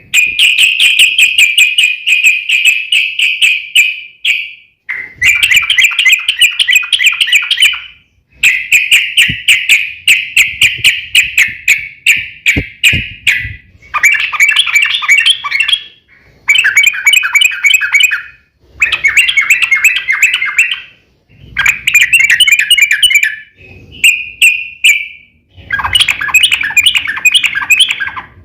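Yellow-vented bulbul (trucukan) singing in loud, rapid chattering rolls, about nine bouts of two to four seconds each with short pauses between them.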